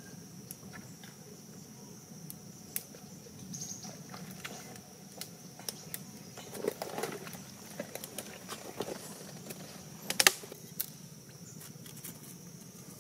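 Footsteps on wet mud among fallen mangrove branches, with dry twigs cracking and snapping now and then; a cluster of sharp cracks about ten seconds in is the loudest. A steady high-pitched hum runs underneath.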